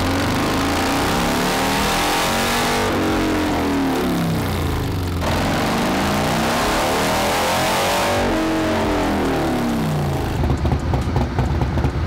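Harley-Davidson Road Glide's Milwaukee-Eight V-twin engine revving up through a dyno pull and winding back down, twice. These are power runs on the dynamometer to measure output. Near the end the engine drops to an uneven, lumpy running.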